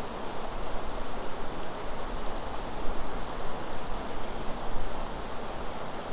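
River water rushing steadily, with gusts of wind rumbling on the microphone.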